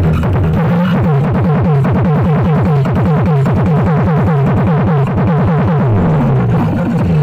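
Electronic dance music played loud through a miniature sound system, a wooden cabinet of horn tweeters and woofers. Rapid repeated falling synth sweeps run over deep bass.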